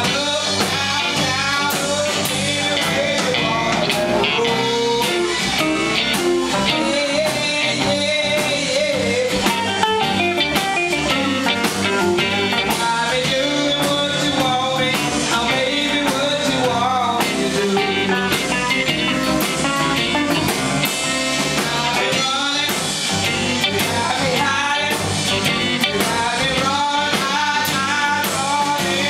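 Live blues-rock band: a woman singing lead over two electric guitars, electric bass and a drum kit.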